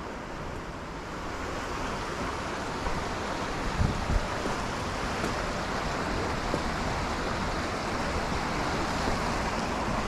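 Steady rushing of flowing creek water, with a couple of low thumps about four seconds in.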